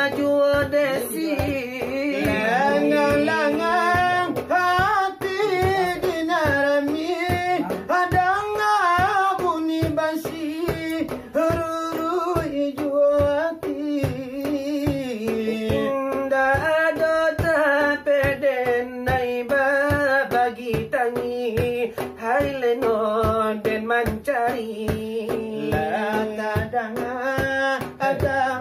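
Two men chanting a Minangkabau selawat dulang, each beating a large brass tray (dulang) with his hands in a fast, steady rhythm under the sung melody.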